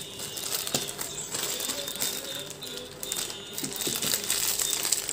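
Thin plastic bags holding small plastic clay flower cutters crinkling and rustling as they are handled, with light irregular clicks of the plastic pieces.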